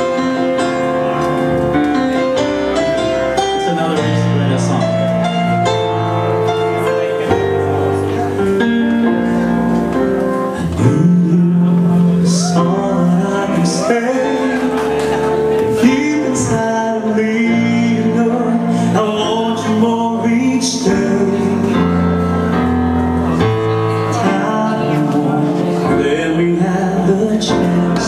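Live band music: a stretch of the song played without clear lead vocals, with guitar and a moving bass line at a steady, loud level.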